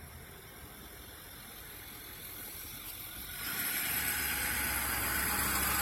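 Fire department rescue truck approaching, its engine and road noise growing steadily louder, with the low engine sound becoming strong about halfway through.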